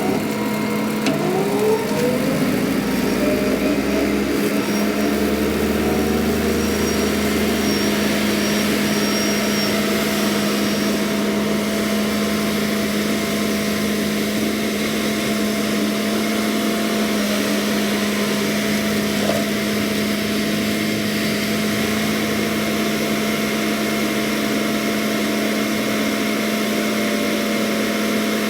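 John Deere 317 skid steer running under load with a CID 84-inch brush hog mowing: a steady engine and hydraulic drone with a strong low hum, its pitch shifting briefly in the first few seconds and then holding steady.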